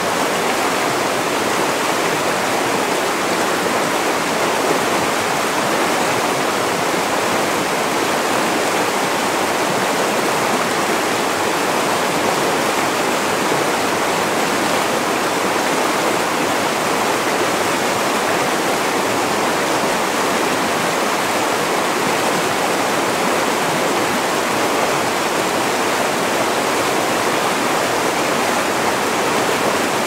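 Spring-fed river rushing fast over a shallow stony bed in white-water riffles: a steady, even rush of water with no breaks.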